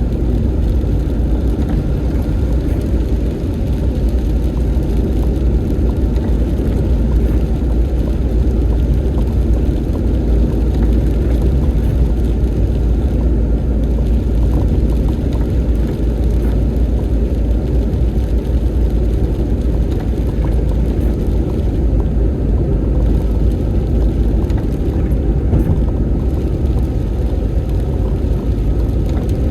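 Car driving along a highway: a steady low rumble of road and engine noise that runs on without a break.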